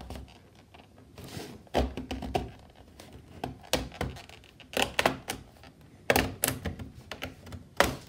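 Irregular sharp plastic clicks and knocks as a thin guitar pick is worked into the seam of an HP 14 laptop's plastic bottom case to pry it open, about ten of them spread unevenly.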